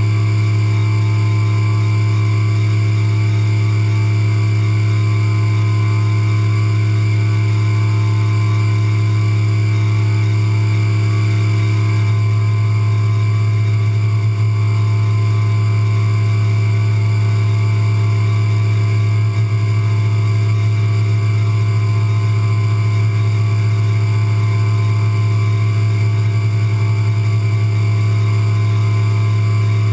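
CNC milling machine spindle running steadily while it engraves a logo into a metal part: a constant low drone with steady higher tones over it, one of which drops out about twelve seconds in.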